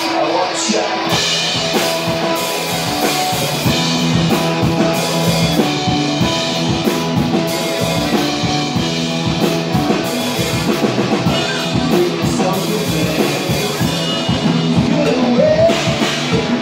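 Live rock band playing a song on electric guitar, bass guitar and drum kit. The drums and bass come in about a second in, joining the guitar.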